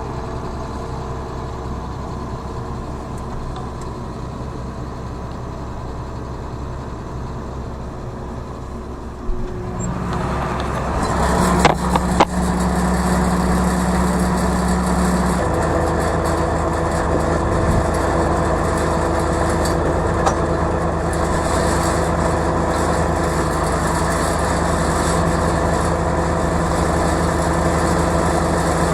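A vehicle engine running steadily, picking up revs about ten seconds in, with a few sharp knocks around twelve seconds, then running on at higher revs.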